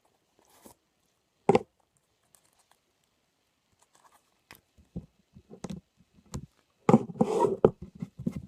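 Puffy putty slime being pressed and squished by hand, giving scattered sharp pops and clicks that thicken into a dense run of crackling about seven seconds in.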